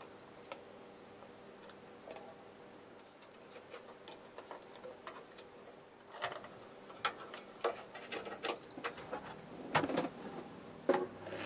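Handling noise from putting a synthesizer back together: light ticks, then a run of sharp clicks and knocks from about halfway as the circuit board and the metal case panel are fitted. The loudest knocks come in the last couple of seconds, over a faint steady hum.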